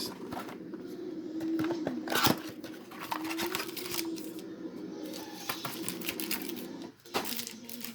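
Foil trading-card packaging crinkling and tearing as a booster box is opened and its packs handled, with a sharper snap about two seconds in.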